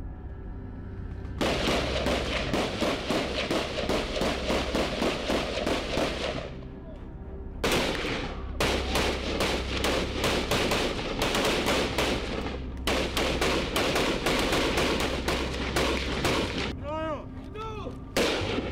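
Rapid, overlapping rifle fire from several Kalashnikov-pattern assault rifles, in long continuous volleys. There is a brief lull about six seconds in and another near the end.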